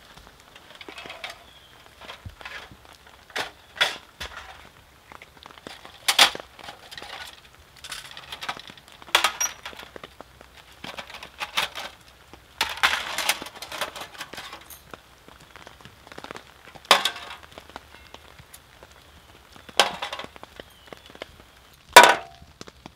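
Thin titanium plates of a folding wood stove clinking and clicking as they are handled and fitted together, in irregular single knocks, the sharpest one near the end.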